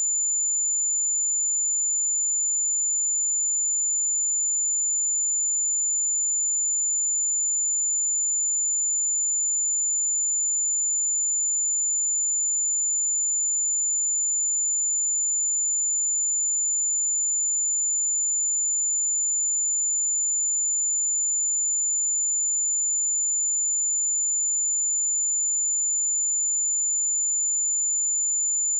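A steady, pure 7056 Hz sine-wave test tone, held at constant pitch and level throughout.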